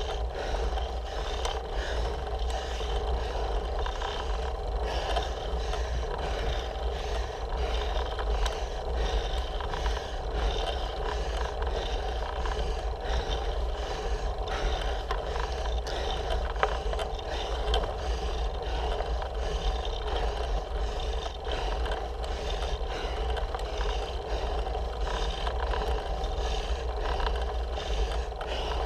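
Road bike riding on coarse asphalt, heard through a handlebar-mounted camera: a steady low rumble of road vibration and wind on the microphone, with frequent small rattles and clicks from the bars and mount.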